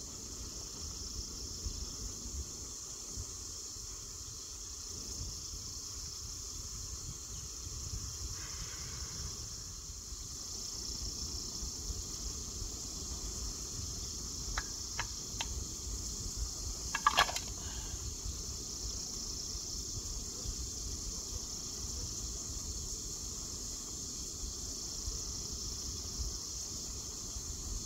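Steady, high-pitched chorus of insects chirring in the forest. About halfway through come a few light clicks, then one louder knock shortly after.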